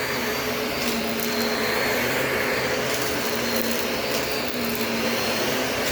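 Shark vacuum cleaner running steadily, its motor giving an even hum with a faint high whine over the airflow noise.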